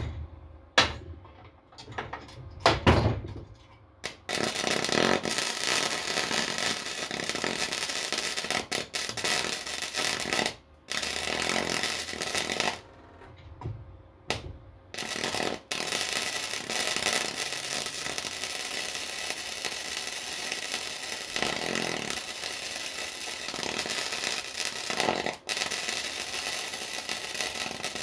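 Flux-core wire-feed welder laying weld beads, the arc crackling steadily in long runs that stop and restart abruptly a couple of times. A few sharp knocks come before the first bead, about four seconds in.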